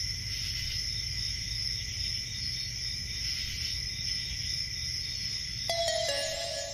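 Steady high-pitched chirring of crickets over a low rumble. Music with clear electronic tones comes in near the end.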